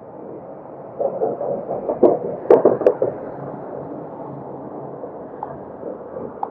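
Heavy tri-axle dump truck driving past, a loud rattling rumble with three sharp bangs from its body between about two and three seconds in, then fading into steady traffic noise.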